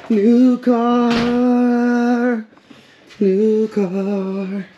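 A person's voice holding two long, level-pitched drawn-out sounds, like an extended 'ooh', the first lasting about two seconds and the second about a second and a half after a short pause.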